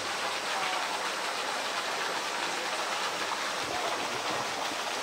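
Water gushing steadily from a pipe in the pool wall, splashing down into the pool in a continuous rush.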